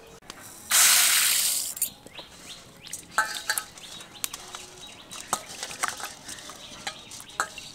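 About a second of pouring into a bowl of masoor dal (red lentils), then the lentils being washed by hand, with swishing and small scattered clicks against the bowl.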